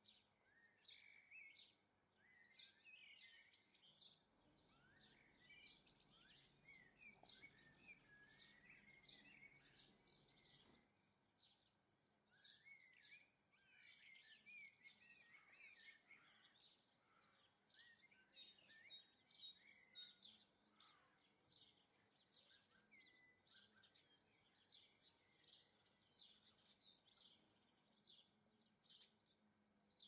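Faint chirping and twittering of small garden songbirds: many quick high calls overlapping throughout, with runs of rapid warbling glides. A faint low rumble sits underneath from about four to eleven seconds in.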